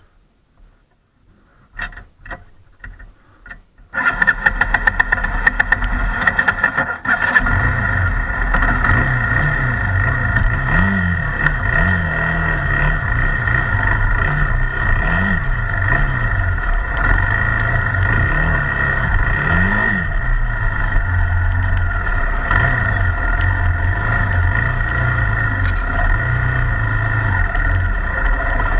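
Honda XR250 Tornado's single-cylinder four-stroke engine starting up about four seconds in after a few faint clicks, then running steadily with the revs rising and falling a few times.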